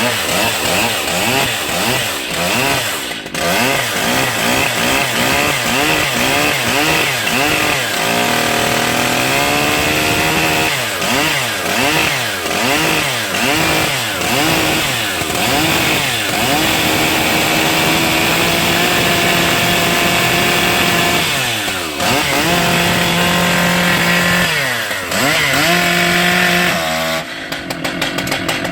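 New Stihl MS880 121.6 cc two-stroke chainsaw running on its first start, revved up and down about once a second, then held at high revs for several seconds at a time. Near the end the revs drop off.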